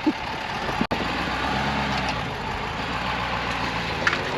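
Pickup truck engine running with a steady hum and road noise; its note rises near the end as it picks up speed.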